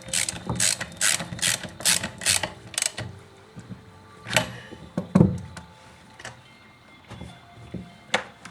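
Hand ratchet clicking in a quick run of short strokes, about three clicks a second, as fasteners on the chainsaw are tightened, followed by a couple of louder knocks of the tool against the saw.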